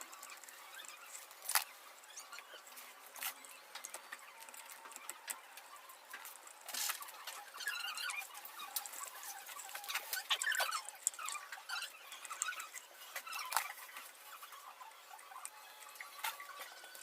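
Irregular clicks, taps and scraping of small parts being handled and worked on during ceiling fan servicing, with a few short squeaks. It is busiest in the middle.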